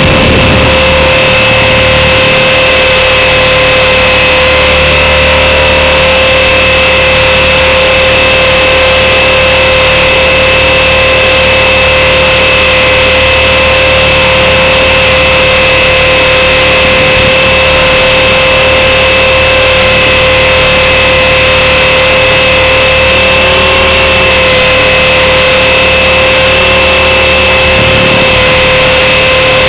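Blade 400 electric RC helicopter's motor, gears and rotor heard from a camera mounted on the helicopter: a loud, steady whine that holds one pitch, over a rushing noise.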